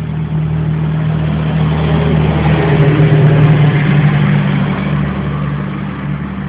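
An engine running steadily at idle, a low even hum that swells louder in the middle and then eases off.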